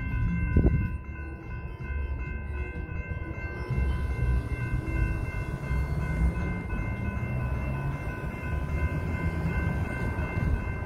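Railroad crossing electronic bells (General Signals Type 2 and Type 3) ringing steadily while the gate arms rise, cutting off near the end as the crossing deactivates. A low rumble runs underneath.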